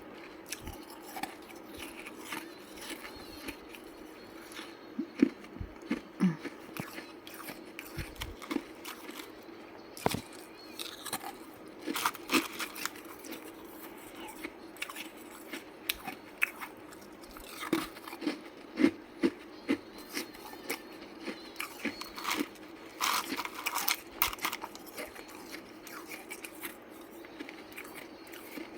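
Ice being bitten and chewed: irregular crunches and sharp cracks, with the loudest bites about five seconds in, around twelve seconds and in a cluster near nineteen to twenty-four seconds.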